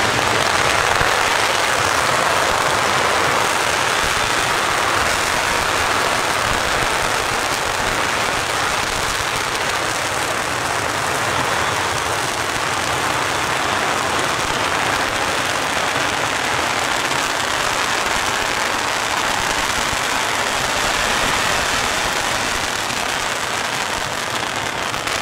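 Long strings of firecrackers hung high from crane booms going off together in one continuous, dense crackle that does not let up.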